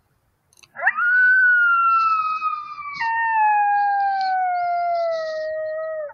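A single long coyote howl: it swoops up sharply about a second in, holds high while sagging slowly, breaks down to a lower pitch about halfway, and slides lower still before cutting off abruptly.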